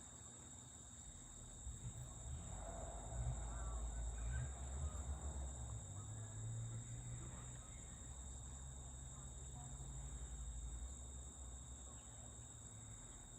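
Insects droning in a steady high-pitched chorus, with a faint low rumble that swells a couple of seconds in.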